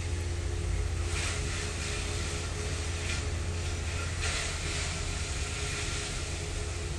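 Steady mechanical hum and hiss with a low drone and faint steady tones, swelling briefly into louder hiss about a second in and again about four seconds in.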